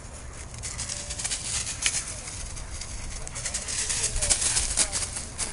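Quick, irregular footsteps crunching and rustling through dry fallen leaves on a woodland floor, loudest near the end.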